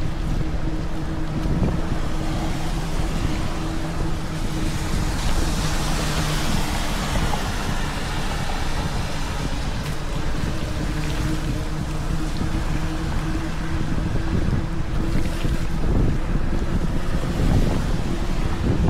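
Steady rushing noise of wind on the microphone and falling rain while riding a mountain bike in the rain, with a faint low steady hum underneath.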